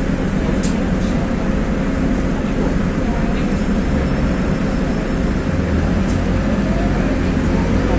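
Cabin noise of a LiAZ 5292.21 low-floor city bus driving at speed: steady engine and road noise. Two light clicks sound, one under a second in and one about six seconds in.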